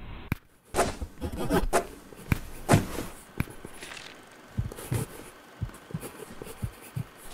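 Sound-design effects: a cluster of sharp clicks and knocks, followed by soft low thumps in an uneven pulse.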